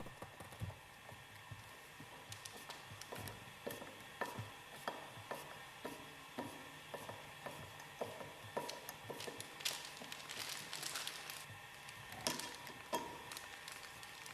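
Faint, irregular clicks, taps and scrapes of hand tools working on metal separator parts, with a faint steady hum underneath.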